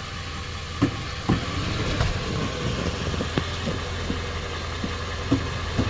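2019 Nissan Sentra engine idling steadily, with several short sharp knocks and clicks from the drivetrain and shifter as the CVT is put into gear: the clunk it makes when shifted into reverse.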